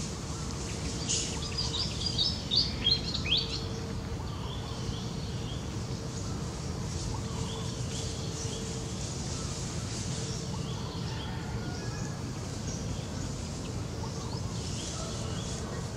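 Small birds chirping in short high notes, with a quick run of chirps in the first few seconds and fainter calls later, over steady outdoor background noise.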